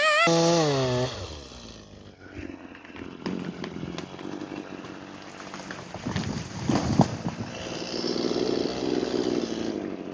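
Chainsaw engine dropping from full revs as the throttle is let off, then the felled pine tree cracking and crashing down about seven seconds in. The saw idles steadily near the end.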